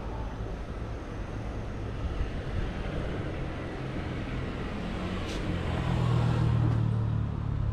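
A motor scooter rides up the wet street and passes close by, its small engine hum growing to its loudest about six seconds in, then easing, over a steady wash of street traffic noise.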